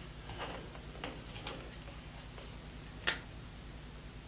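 A few light clicks and taps as a crocodile clip and test lead are handled against a plastic plug adapter, with one sharper click about three seconds in.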